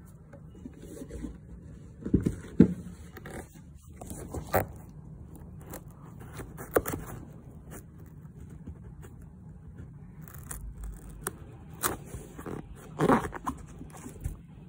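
A flat shoelace being pulled through the eyelets of an Air Jordan 1 High sneaker, with fingers handling the shoe: irregular scraping and rustling broken by sharp clicks, loudest about two seconds in and again near the end.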